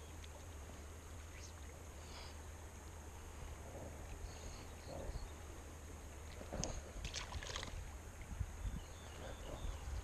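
Shallow creek water rushing steadily over a riffle, with a steady low rumble beneath it and a few short knocks and clicks about two-thirds of the way through.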